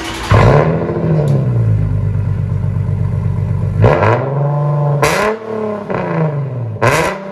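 Infiniti G37 Coupe's 3.7-litre V6 running through a straight-piped exhaust: muffler and resonators deleted, stock catalytic converters kept. It is revved several times, the pitch climbing and falling back each time, with sharp cracks near the later revs.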